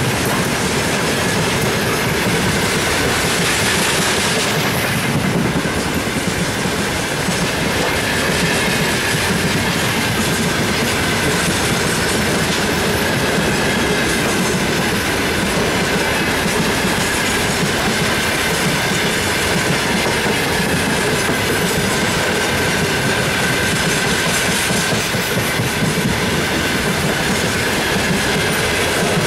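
Freight train of open gondola wagons rolling past close by: a steady loud rumble and clatter of wagon wheels over the rails, with a thin steady high tone running above it.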